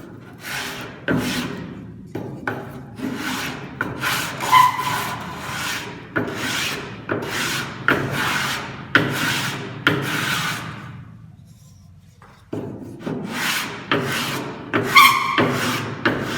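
Sandpaper on a sanding block rubbed back and forth on the wooden edge of a hand-made spatula: a run of rasping strokes, roughly one or two a second, with a short pause past the middle before the strokes resume.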